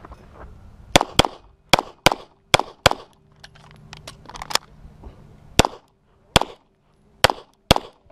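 String of pistol shots, about eleven, several fired in quick pairs about a fifth to a third of a second apart, with a pause of about a second and a half after the first six.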